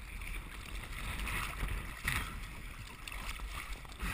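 Water rushing and splashing against an inflatable towed tube as it is pulled across the sea, with wind rumbling on the microphone.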